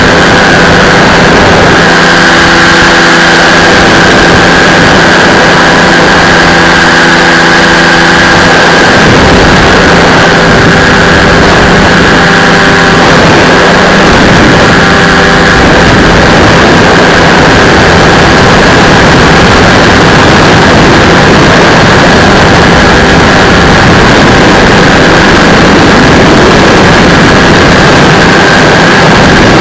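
Powered parachute's engine and pusher propeller running steadily in flight, very loud, with wind rumble on the helmet microphone growing heavier about nine seconds in.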